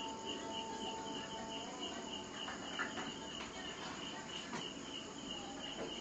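Insect chirping: a steady high-pitched pulse repeating about five times a second, over a low even hiss, with a few light clicks.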